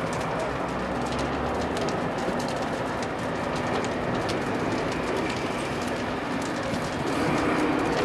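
Fire burning inside a steel barge's hull: a steady rushing noise with frequent sharp crackles and pops, over a steady low hum.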